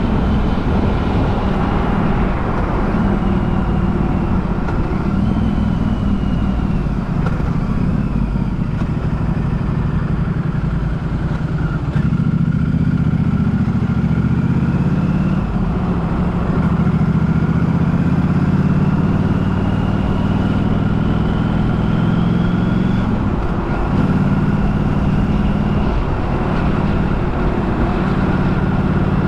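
A moving vehicle: a steady low rumble, with several faint whines that glide up in pitch over it.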